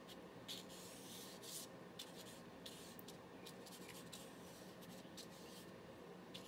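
Faint, soft swishes of a paintbrush stroking across paper, coming irregularly, over a faint steady low hum.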